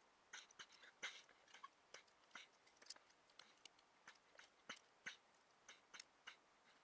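Faint, irregular clicks of pliers gripping and bending the teeth of a small unhardened steel circular saw blade, about two or three a second. The teeth are being set zigzag to alternate sides so the blade cuts a wider kerf and stops rubbing and burning in MDF.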